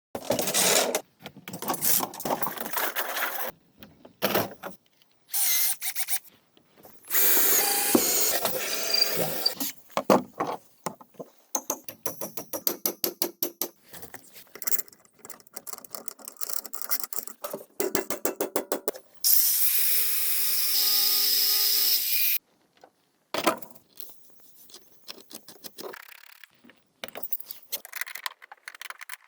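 Tool work on bamboo in a string of short clips that start and stop abruptly: scraping and cutting noise, a run of rapid even clicks, and a steady power-tool whine for about three seconds past the middle.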